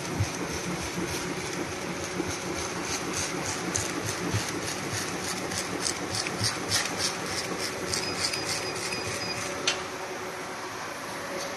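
Bubble wrap bag making machine running, a steady mechanical hum with a fast run of repeated clicks. A thin high whine joins for a second or two and cuts off suddenly after about ten seconds.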